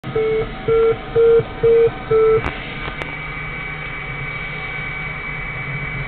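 Five short electronic beeps at one steady pitch, about two a second, then two sharp clicks. After them a steady electronic hum and hiss with a faint high steady tone carries on.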